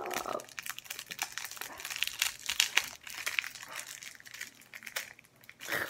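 Crinkling of a snack bar's wrapper as it is worked open by hand around a chocolate-filled wafer bar: irregular crackles that thin out near the end.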